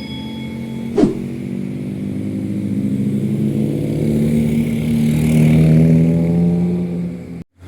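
Large vehicle's engine accelerating past, its pitch climbing slowly and its sound building to a peak before cutting off abruptly near the end. There is a brief sharp sound about a second in.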